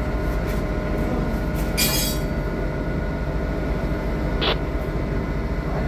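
Loud, steady drone of ship's machinery, with a short burst of hiss about two seconds in and a brief click later on.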